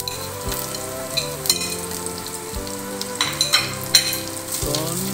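Cashew nuts and coconut pieces sizzling and frying in hot ghee in a non-stick kadai, with a few sharp clicks about three to four seconds in.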